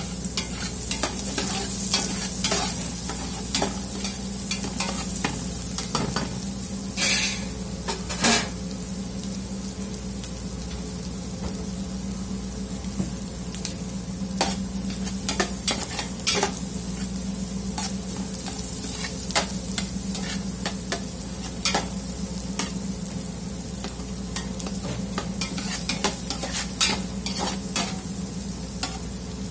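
Chopped garlic and onion sizzling in melted butter in a large aluminium pot, with a spatula stirring and clicking against the pot now and then, loudest about 7 and 8 seconds in. A steady low hum runs underneath.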